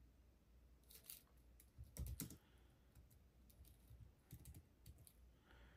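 Faint typing on a computer keyboard: scattered key clicks in a few short runs.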